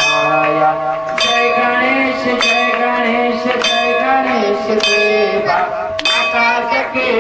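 A bell struck in a steady beat, a little more than once a second, its ringing carrying on between strikes, under voices singing an aarti.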